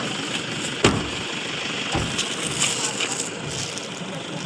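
A sharp thump about a second in and a softer one about a second later, over the steady hum of an idling car and low voices.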